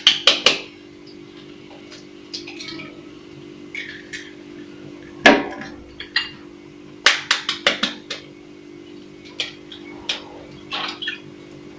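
Eggs being cracked by tapping them against the edge of a bowl: clusters of sharp knocks, one loudest about five seconds in and a quick run of them around seven seconds. A faint steady hum runs underneath.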